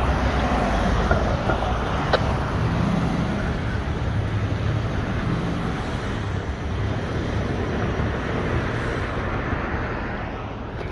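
Road traffic noise: a steady rumble of vehicles on a city street, slowly fading, with one brief click about two seconds in.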